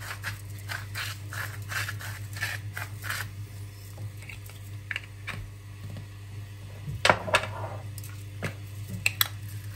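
Pepper mill grinding over a dish of fish: a run of short crunchy clicks, about two or three a second, for the first three seconds. A few louder knocks and clatters follow about seven seconds in, over a steady low hum.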